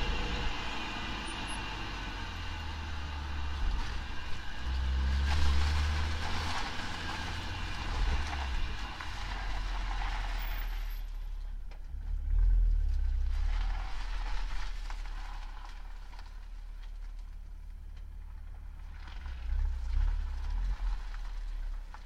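Vehicle differential and driveline heard through a microphone taped to the diff housing while driving: a heavy low rumble throughout, with a higher hiss that swells and fades, drops away sharply about halfway through, then returns more weakly.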